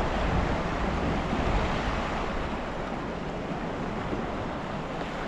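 Steady rush of sea water and wind around a drifting kayak, with wind buffeting the microphone and giving a low rumble.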